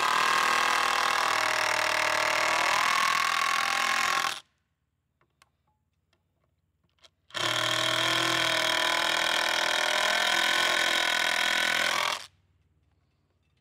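Handheld power drill running under load into a wooden support brace, in two long runs of about four seconds each with a pause of about three seconds between; its pitch drops partway through the first run as the load comes on.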